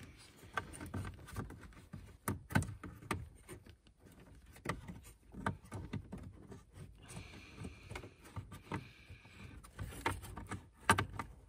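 Plastic wiring-harness connector and loom being handled and pushed at the back of an ignition switch: irregular small clicks, knocks and rustles as the plug is worked at an angle without seating, with a brief hiss about seven seconds in.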